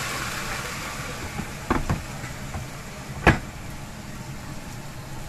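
Asparagus frying in a nonstick pan: sizzling and hissing as liquid hits the hot pan dies down over the first second. Then come a few sharp knocks of wooden chopsticks against the pan, the loudest about three seconds in, over a steady low hum.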